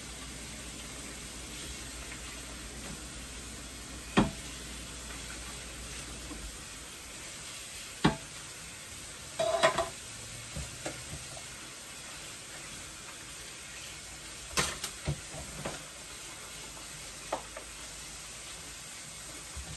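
Scattered clinks and knocks of dishes and a pan being hand-washed and set into a dish rack, one cluster with a short metallic ring about ten seconds in, over a steady hiss.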